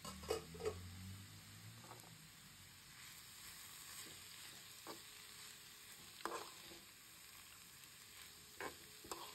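Shredded cabbage and carrot sizzling faintly in a frying pan while a metal spoon stirs them, with a scrape or clink of the spoon against the pan every second or two; the two loudest come right at the start.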